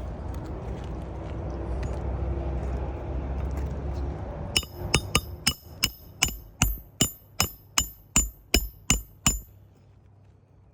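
A steady low rumble, then a hammer striking metal about three times a second: some fourteen sharp, ringing blows that stop abruptly, typical of a hammer driving a roofing nail.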